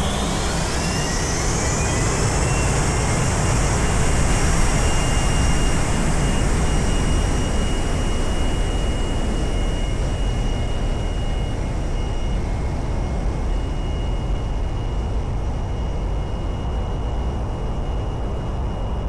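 Cessna Citation X's turbofan engines spooling up to takeoff thrust: a whine rises over the first two or three seconds, then holds steady over a loud, constant roar during the takeoff roll.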